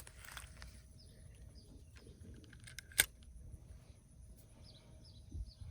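Low wind rumble on the microphone with a few faint bird chirps, and one sharp click about three seconds in.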